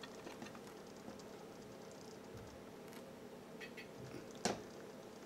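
Servo drive of a model railway level crossing gate ticking badly and irregularly as the gate swings, with one sharp click about four and a half seconds in.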